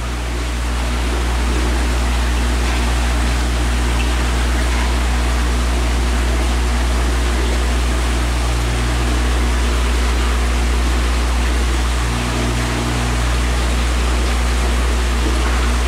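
Steady low hum of an aquarium's circulation pump under a constant rush of moving water in the tank.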